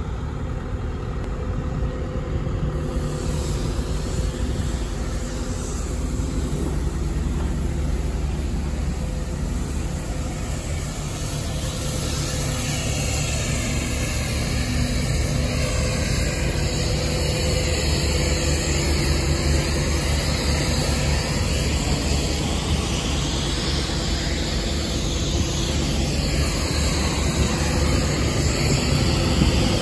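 2007 JCB JS220LC 22-tonne excavator's diesel engine running steadily.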